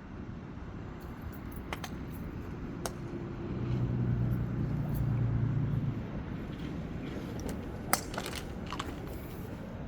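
Sharp cracks of a golf club striking balls at a driving range: a couple of light clicks early, then one loud crack about eight seconds in. Under them is a low steady hum that swells for a couple of seconds in the middle.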